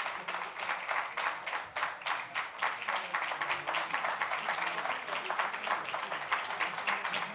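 A press room crowd greeting the arrivals with dense, irregular clapping mixed with camera shutter clicks, several a second throughout, over a low murmur of voices.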